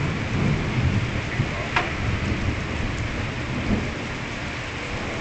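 Rain falling during a thunderstorm, with a low rumbling throughout and one short, sharp click about two seconds in.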